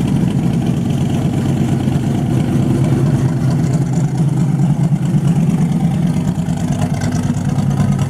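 Hot-rod speedster's engine running at low revs through its handmade side pipes as the car pulls away slowly.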